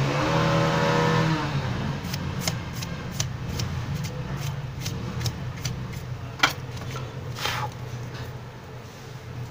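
A passing motor vehicle's engine, falling in pitch and fading over the first second and a half over a steady low hum, followed by scattered light clicks and taps.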